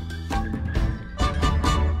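Background music with a beat and a run of accented hits in the second half.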